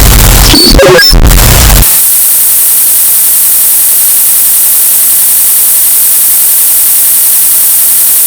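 Loud distorted noise with wavering pitched tones for about two seconds, then an abrupt switch to a steady, harsh, high-pitched hiss like static.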